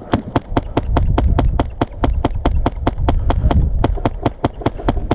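Airsoft rifle firing a steady string of shots, about six to seven a second, with low thuds from the player moving underneath.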